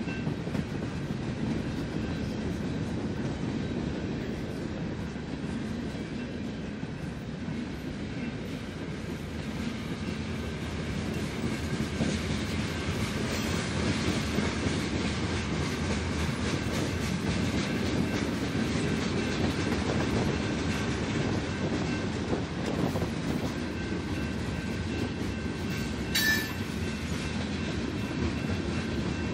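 Freight cars of a Canadian National train (boxcars, covered hoppers and tank cars) rolling past: a steady rumble of steel wheels on rail with a running clickety-clack over the joints, a little louder in the middle. A brief sharp sound cuts through near the end.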